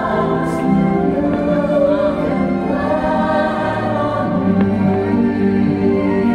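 Fireworks show soundtrack: a choir singing held notes over a musical backing.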